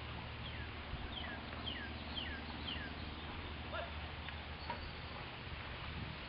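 A small bird calling in a steady series of short chirps that slide downward, about two a second, over a steady low hum.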